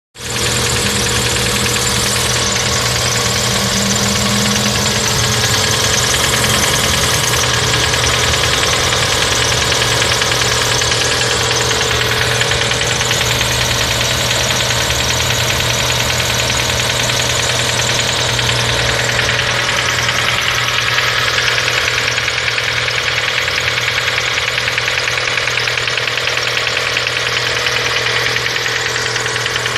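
Great Wall Hover H2's 2.4-litre 4G64S4M petrol four-cylinder engine running steadily with a fast, even ticking in its sound: an extraneous engine noise whose cause the owner does not know.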